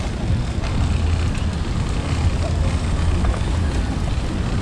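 Steady low wind rumble on the microphone with outdoor background noise, picked up while riding a bicycle.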